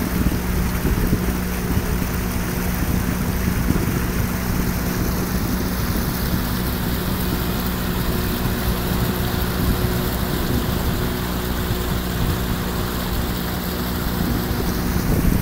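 Pontoon boat's outboard motor running at a steady, even speed, a constant low drone.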